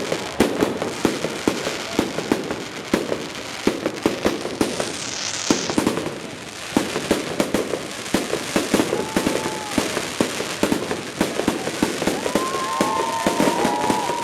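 Fireworks going off in a rapid, continuous string of sharp bangs and crackling pops. In the last few seconds several held, whistle-like tones sound over the bangs.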